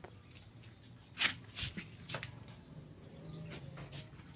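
Faint handling noise: a few soft knocks and rustles, the loudest about a second in, over a low background hum.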